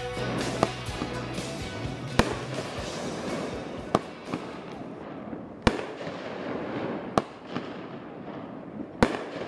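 Aerial fireworks going off: about six sharp bangs, roughly a second and a half apart, over a constant crackling hiss.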